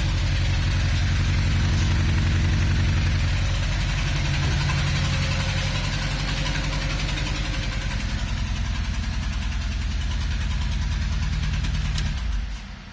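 Saab car engine idling roughly with a lumpy, uneven beat, sounding cammed, which the owner ties to a sudden loss of power. The engine sound stops near the end.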